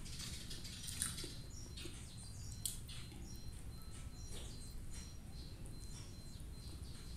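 Close-up mouth sounds of eating plain white rice by hand: soft chewing and finger licking, with sharp lip smacks about one second and two and a half seconds in. Faint short bird chirps sound in the background throughout.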